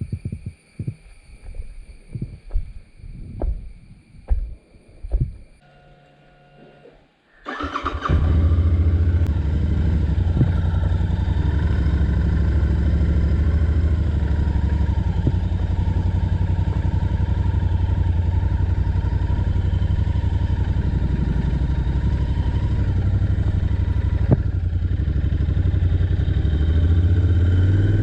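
Royal Enfield Interceptor 650's parallel-twin engine starting about seven seconds in, after scattered knocks, then settling into a steady idle.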